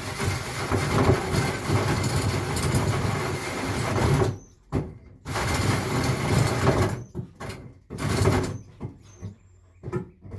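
Power drill cutting a hole under light pressure: it runs steadily for about four seconds, then stops and restarts in shorter runs and quick trigger pulses.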